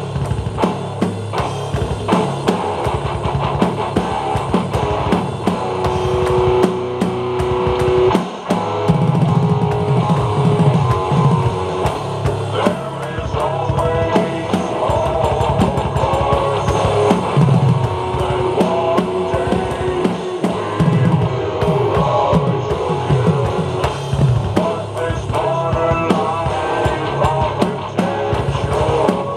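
Drum kit played hard along to a recorded rock song with guitar: dense, continuous drum and cymbal hits over held guitar notes.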